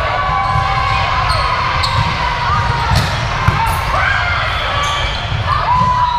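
Indoor volleyball rally: a few sharp ball strikes and shoe squeaks on the court, over players' and spectators' voices.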